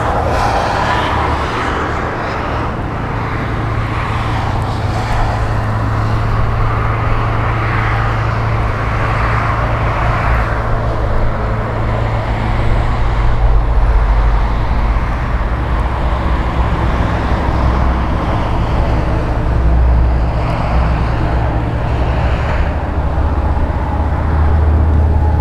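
Steady engine hum mixed with road traffic noise, swelling and easing a little.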